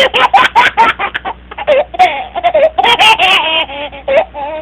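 Comedy laughter sound effect: high-pitched laughter in rapid, bouncing bursts with wavering pitch.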